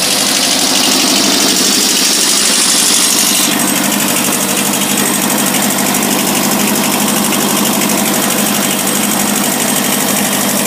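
Kubota B6000 tractor's small two-cylinder diesel engine running steadily with a fine rattle. A high hiss on top of it cuts off suddenly about three and a half seconds in.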